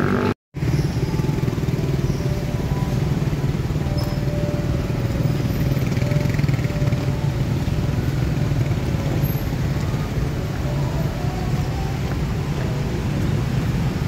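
Road traffic: cars and motorcycles passing close by with a steady engine rumble. The sound cuts out completely for a moment about half a second in.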